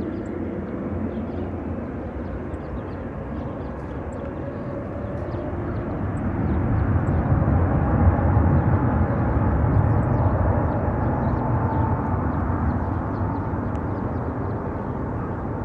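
Boeing 777-200's twin turbofan engines at takeoff thrust: a deep, steady jet roar with a faint whine over it, building to its loudest about eight to ten seconds in and then easing slightly as the airliner rolls away down the runway.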